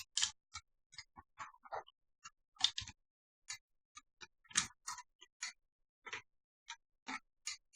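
Faint, irregular clicks and taps of a CPU cooler being fitted onto a motherboard, its clips and tabs knocking as it is set over the processor.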